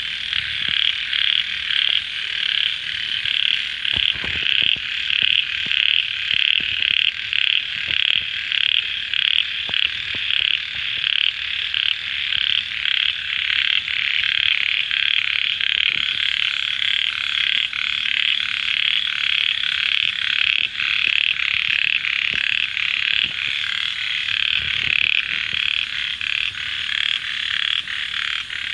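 A tiny frog, no bigger than a little fingertip and patterned like a narrow-mouthed frog (locally called 'khit kha kham'), calling at night: a long, steady series of short, high-pitched rasping notes, about three a second.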